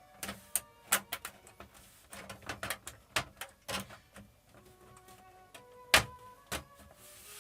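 Irregular sharp clicks and knocks of hands handling TV parts and tools on a workbench, the loudest about six seconds in, over faint background music.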